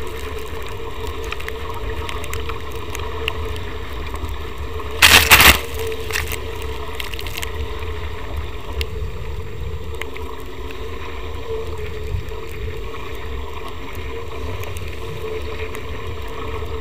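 Wind buffeting the deck-mounted action camera and water rushing past a Nacra 500 catamaran's hulls under sail, a steady low rumble. About five seconds in there is a short, loud burst lasting about half a second.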